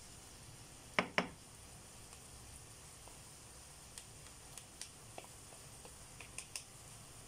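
Cooking utensils (a slotted turner and a wooden spatula) clacking against each other and the frying pan while tossing a stir-fry. There are two sharp knocks about a second in, then a run of lighter taps later on.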